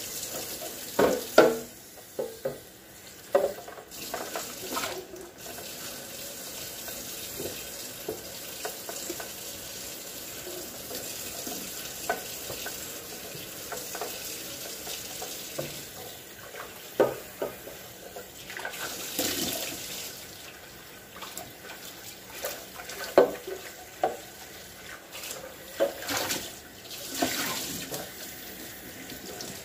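Kitchen tap running steadily into a sink, with scattered knocks and clatter of things being rinsed and handled under the water.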